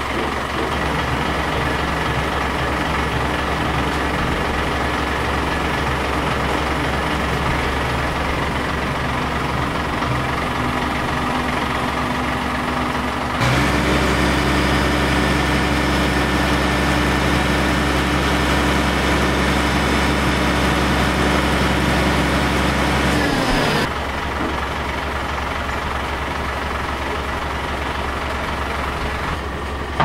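Large flatbed truck's engine idling steadily. About halfway through it runs louder and a little higher for some ten seconds, then drops back with a short falling note.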